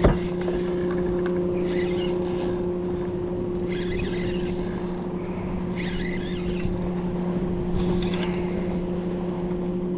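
A boat motor's steady, even hum throughout, while a hooked catfish is reeled in, with short bursts of reel and line noise about every two seconds.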